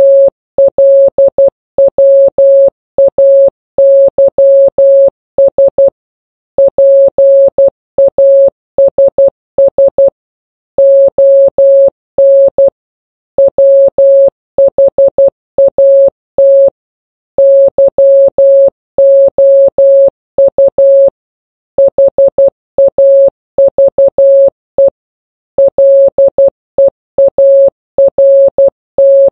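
Morse code (CW) sent as a single computer-generated tone, keyed on and off in short and long elements with longer pauses between words; it spells out a Yoda quote.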